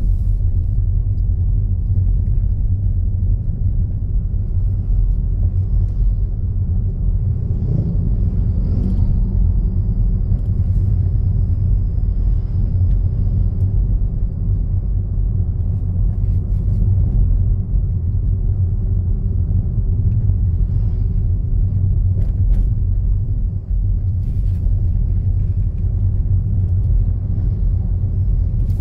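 Steady low rumble of a car driving along a road, heard from inside the cabin, with a few faint clicks.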